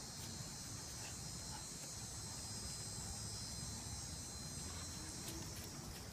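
Steady, high-pitched drone of an insect chorus, over a low rumble of wind or handling noise on the microphone.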